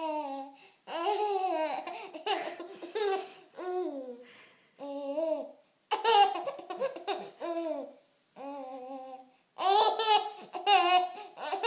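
Five-month-old baby babbling and laughing in a string of about ten short, high-pitched vocal bursts that rise and fall in pitch, with brief pauses between them.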